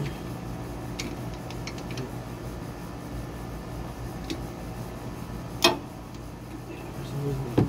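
Hand tools clicking and clinking against the truck's front suspension: scattered sharp metallic ticks, a quick run of small ticks about a second and a half in, and one louder clink about three-quarters of the way through, over a steady low hum.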